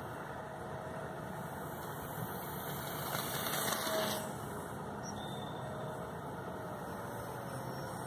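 Faint whine of an RC plane's battery-powered electric motor and propeller flying at a distance, its pitch sliding down after about four seconds as it passes, over steady wind noise. A louder rush of noise swells about three seconds in and cuts off at about four.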